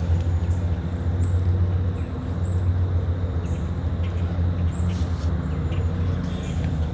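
A steady low rumbling hum with a light hiss above it, unchanging throughout, with a few faint short high chirps.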